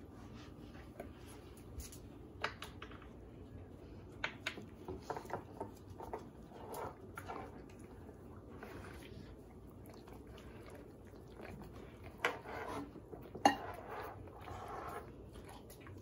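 Dogs licking and nosing at empty plates on a table, the plates clinking and scraping now and then, with a few sharper knocks; the loudest knock comes about thirteen and a half seconds in.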